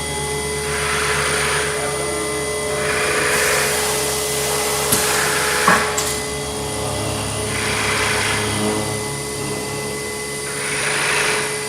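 Automatic tray sealing machine running a MAP (vacuum and gas-flush) packing cycle: a steady mechanical hum with swells of hissing noise every two to three seconds, and two sharp clicks near the middle.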